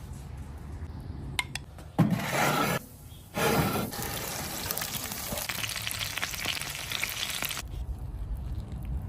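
Food sizzling on a barbecue, starting with two loud bursts and then a steady crackling hiss that cuts off about three-quarters of the way through.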